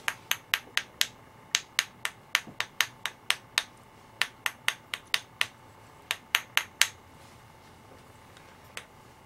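Sharp repeated clicks of a hand spatter tool being flicked to speckle thinned paint onto a painted surface, in quick runs of two to four a second that stop about seven seconds in.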